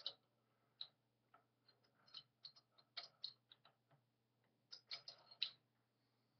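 Loose metal parts of a stripped-down Singer sewing machine clicking and tapping against each other as the fork is worked into place on the crank and cam. The clicks are light and irregular, coming in small clusters, with a quick run of them near the end.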